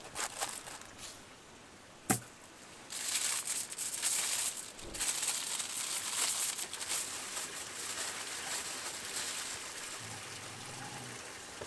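Aluminium foil crinkling and rustling in irregular bursts as it is pressed and wrapped by hand around potatoes. A single sharp click comes about two seconds in.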